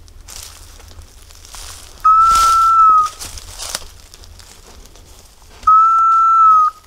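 Hunter's dog whistle blown twice close by: two loud, steady, high blasts of about a second each, the second about three and a half seconds after the first. Between them, dry leaves and brush crackle underfoot.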